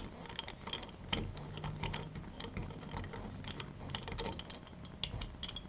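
AR-15 collapsible buffer tube being unscrewed by hand from the lower receiver: irregular light metallic clicks and scraping as the tube turns in the receiver threads.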